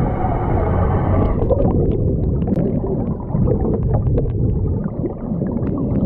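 Underwater sound picked up by a camera held below the surface: a steady low rumble and gurgle of moving water, with many small scattered clicks. The higher sound thins out about a second in.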